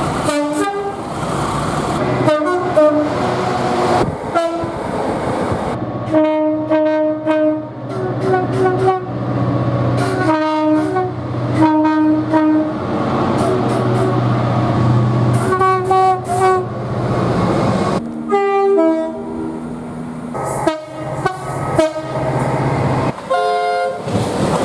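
A run of train horn blasts, cut one after another: chords of several tones sounding together, mostly short blasts of about a second with a few held longer, over a low rumble.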